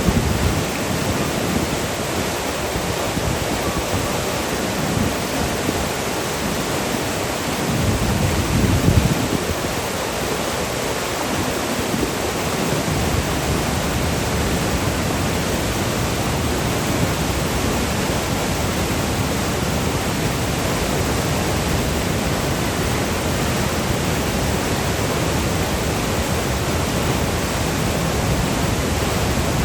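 Waterfall: water falling and churning in a steady, dense rush, with low rumbling swells now and then in the first third.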